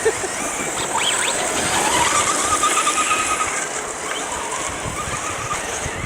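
Brushless electric 1:8 RC truck driving: a thin motor whine rises about two seconds in and holds steady for a few seconds over a constant hiss.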